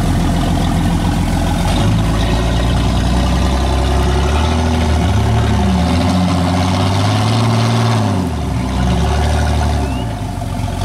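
Jeep engine running, revved up and down several times as the Jeep works in deep mud.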